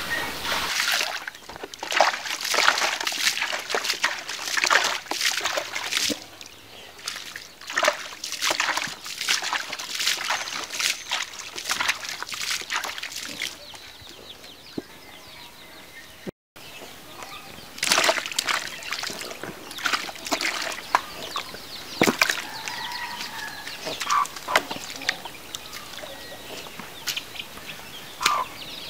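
Water splashing and sloshing in irregular bursts, with a brief gap about halfway through.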